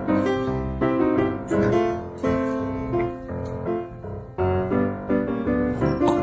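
Background piano music, a melody of struck notes that ring and fade.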